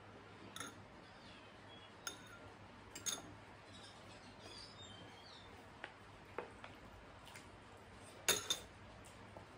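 Metal spoon clicking and clinking against serving bowls a handful of times while food is scooped up, the loudest a quick double clink near the end, over a faint steady hum.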